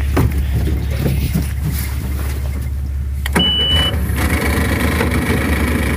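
Mercury 60/40 jet outboard: a steady low hum, then a click and a short, steady high beep about three seconds in. After the beep the engine runs louder.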